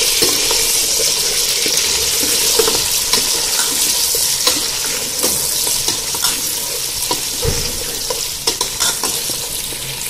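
Raw goat meat sizzling in hot oil with fried onions in a metal pot, being browned. A ladle stirs and turns it, with frequent short scrapes and clicks against the pot over a steady hiss.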